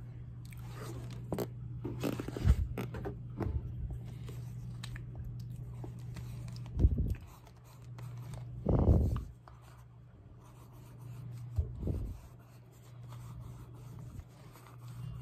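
Rubbing and scraping of paper and of the phone being handled over a notebook on a desk, with several dull knocks, over a steady low hum.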